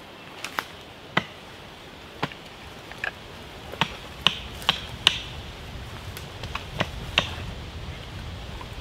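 Wood being struck: about a dozen sharp knocks at irregular intervals, the loudest bunched around the middle.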